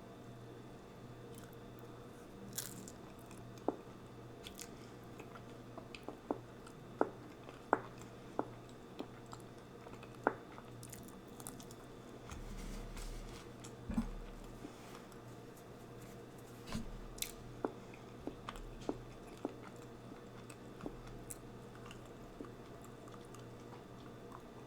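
A person chewing and biting food close to the microphone, with scattered sharp crunches and softer wet chewing sounds.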